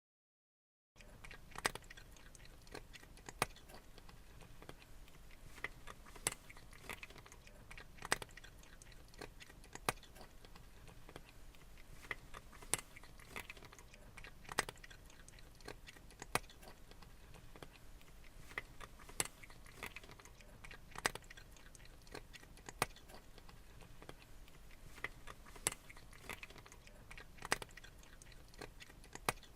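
A cat chewing and crunching its food, with irregular sharp crunches about once or twice a second over a faint hiss, starting about a second in.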